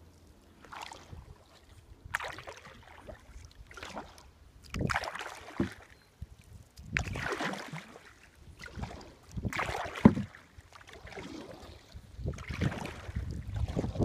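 Kayak paddle strokes in calm water: the blade dips, pulls and splashes about every second and a half, with water dripping off between strokes.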